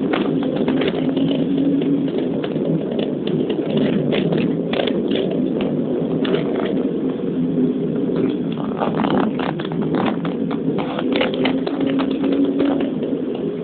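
Vehicle cabin noise while driving down a winding mountain road: a steady low rumble of engine and tyres, with frequent short clicks and rattles.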